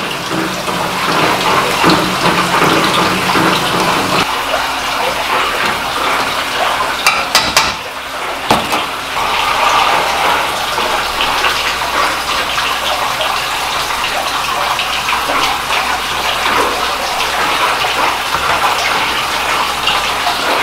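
Steady rush of running and splashing water in a kitchen, with a few sharp metal clinks about seven to eight and a half seconds in.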